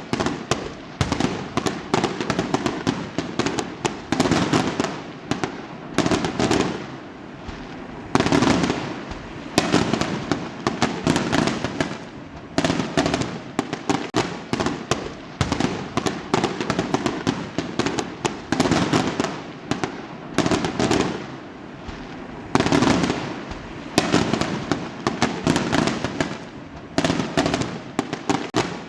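Fireworks going off in a dense barrage: rapid, overlapping bangs and crackles, easing off briefly about a quarter of the way in and again about three quarters through.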